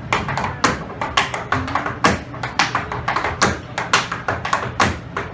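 Tap shoes striking a hard floor in an improvised solo rhythm: a fast, uneven run of sharp taps and heel drops, several a second, with no accompaniment.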